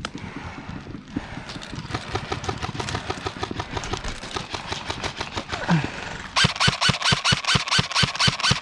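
Airsoft gun firing rapid full-auto bursts, about eight shots a second. A softer run of shots starts about two seconds in, then a much louder burst comes near the end.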